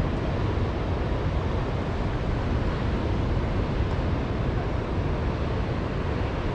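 Steady wind rumbling on the microphone, with the wash of surf from the beach beneath it.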